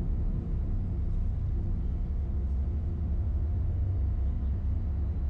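A steady low outdoor rumble with no distinct events.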